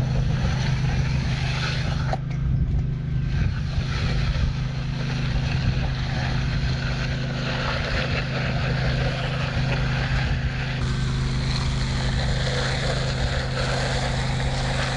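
An engine running steadily at a constant speed, an even low hum.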